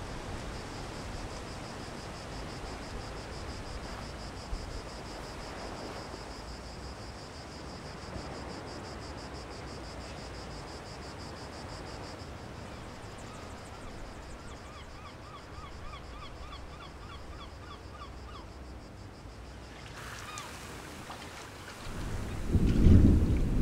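Outdoor summer ambience with an insect trilling in a fast, even pulse, joined about halfway through by a bird's short chirping notes repeated several times a second. Near the end the trilling stops and a loud low rumble swells in.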